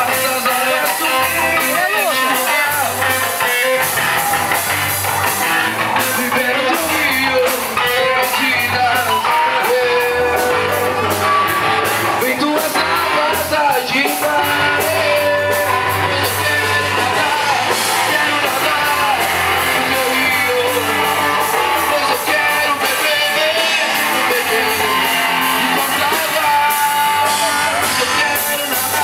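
Rock band music with guitar, a steady beat and some singing, from a Portuguese-language worship song.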